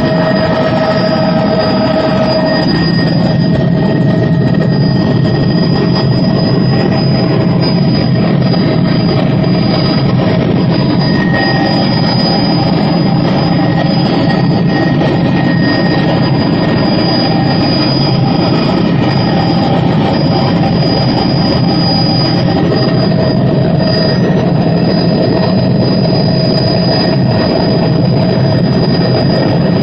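Tour helicopter in flight, its turbine engine and rotor making a loud, steady drone with a few constant high whining tones.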